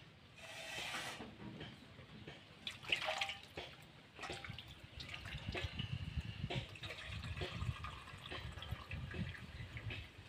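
Water splashing and dripping into a steel bowl as a plate of sliced banana flower is rinsed and drained over it, with scattered clinks and knocks of the plate and bowl.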